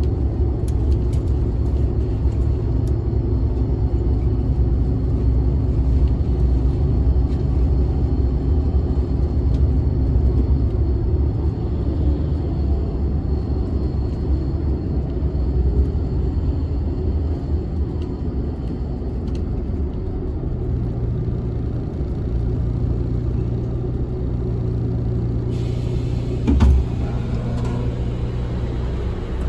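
Low, steady engine and road rumble heard from inside a moving city bus, its note settling into a steadier hum about two-thirds of the way through as the bus slows toward a stop. A single short knock sounds near the end.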